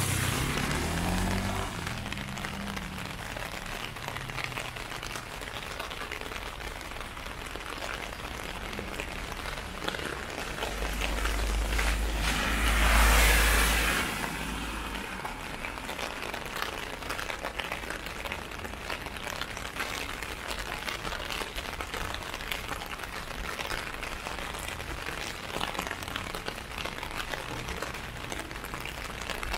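Steady rain falling on an umbrella overhead, a dense patter of fine drops. A vehicle drives past on the wet street, swelling to the loudest point about 13 seconds in and fading by 14 seconds.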